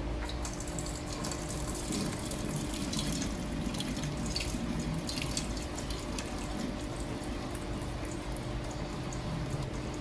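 Hot water being poured off a bowl holding a microwave-poached egg, trickling and splashing into a kitchen sink, with a steady low hum behind it.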